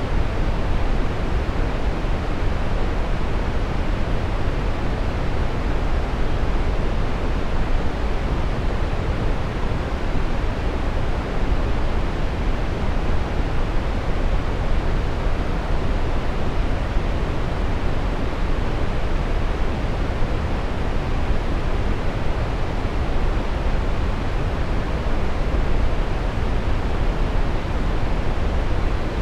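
Steady brown noise: an even, deep rushing hiss, strongest in the bass and falling away toward the treble, with no change throughout.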